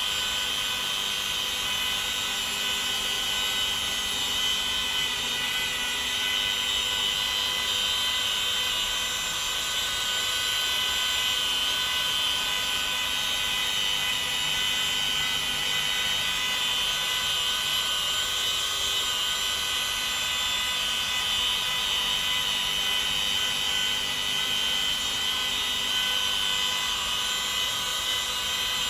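Mini rotary polisher with a small foam pad running steadily against car paint: an even electric motor whine that does not change.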